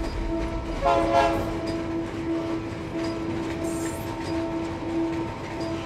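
Model diesel locomotive running with its sound system on: a steady engine hum with wheel clicking, and a short horn blast about a second in.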